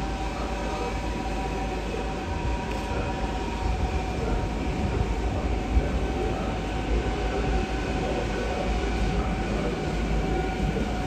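Deutsche Bahn ICE high-speed electric train moving slowly through a station. A steady low rumble of wheels on rails runs under a constant high whine made of several held tones.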